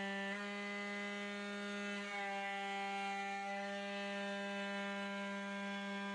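Lemontart desktop CNC mill's spindle and end mill cutting an aluminium block at slowed-down feeds: a steady pitched whine with many overtones, its tone shifting slightly about a third of a second in and again about two seconds in as the cut changes.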